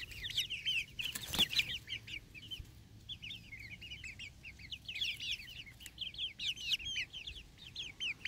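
A flock of half-grown chicks peeping continuously, with many short, high, falling chirps overlapping one another. A single knock about a second and a half in.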